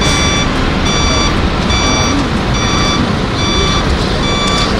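A vehicle's reversing alarm beeping steadily, about one beep a second, over loud steady traffic noise from lorries driving through floodwater.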